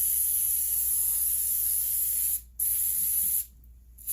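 Aerosol can of brake cleaner spraying in bursts: one long hiss of about two and a half seconds, then a shorter one, and another starting near the end.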